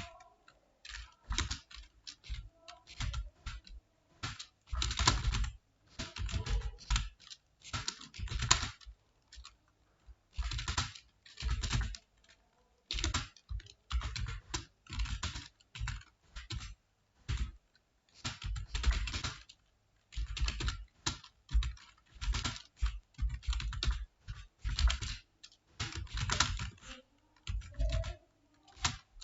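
Typing on a computer keyboard: quick runs of keystroke clicks in bursts of about a second, separated by short pauses.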